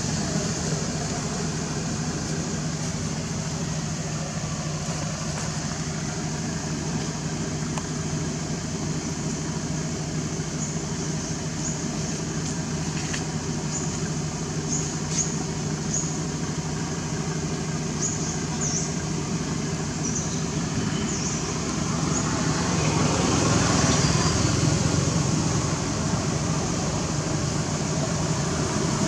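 Steady low hum of vehicle traffic with road noise, swelling louder for a few seconds near the end, with a few faint short high chirps in the middle.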